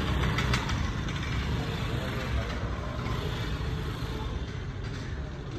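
Steady street traffic rumble of passing motor vehicles, with a couple of sharp clicks about half a second in.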